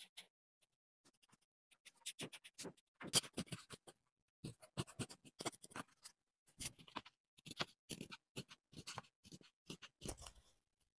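A marker pen scratching over paper in many short strokes, then small scissors snipping through paper in a quick series of cuts.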